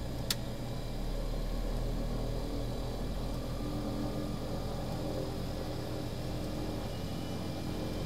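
Aircraft engines running steadily as a low rumble, with a few steady tones over it. A single sharp click comes a moment in.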